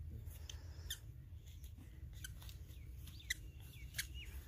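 Small birds chirping outdoors: short, high calls scattered through, and a thin whistled note near the end, over a faint low rumble.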